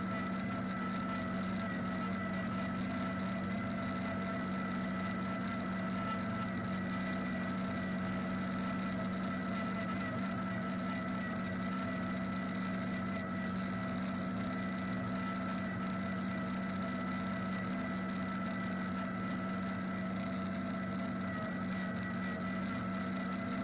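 John Deere 3940 forage harvester chopping hay behind a John Deere 4620 tractor: the tractor's six-cylinder diesel runs under steady PTO load while the harvester's cutterhead and blower spin at constant speed. The sound is an even drone with a steady high whine over it.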